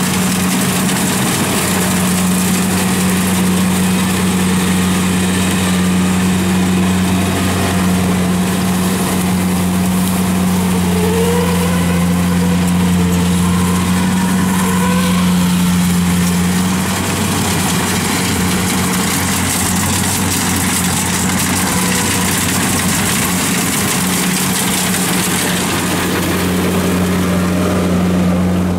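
Kubota rice combine harvester's diesel engine and threshing machinery running steadily while it cuts rice: a constant low drone with a hiss of crop and machinery over it. Near the end the sound changes to a tracked rice carrier's engine.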